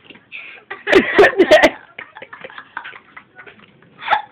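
Dog chewing and crunching Froot Loops cereal: quick, irregular crunches and clicks, with a louder flurry of crunching about a second in.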